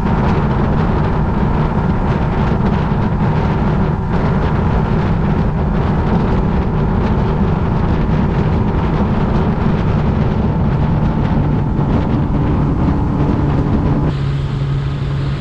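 Mercury Optimax two-stroke outboard running steadily at cruising speed, its engine note mixed with the rush of wake and wind. Near the end the water rush drops away, leaving a steadier, lower engine tone.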